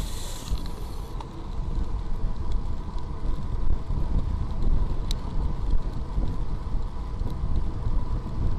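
Steady wind noise buffeting the microphone of a camera moving along a road at about 30 km/h, a low rumble with a faint steady whine in it. A brighter hiss dies away about half a second in, and there is one sharp click near the middle.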